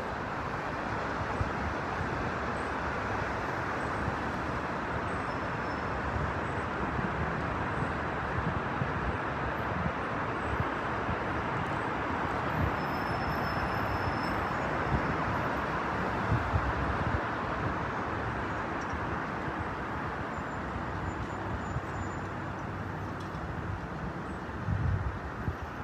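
Steady road traffic noise from a busy multi-lane city boulevard, with cars and buses passing, and a few short low rumbles midway and near the end.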